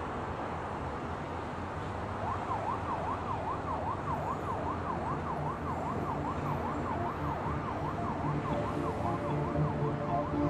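Emergency vehicle siren wailing fast up and down, two to three sweeps a second, starting about two seconds in, over a steady hum of city traffic.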